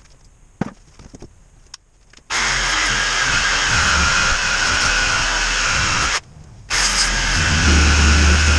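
A few handling clicks, then a loud power tool starts suddenly about two seconds in and runs steadily. It stops for about half a second near the end, then runs again.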